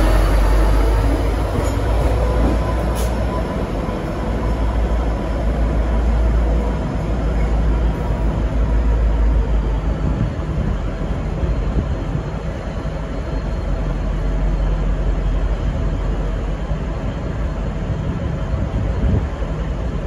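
V/Line N class diesel-electric locomotive running past along the platform and pulling away, a steady engine and wheel rumble that stays heavy in the low end.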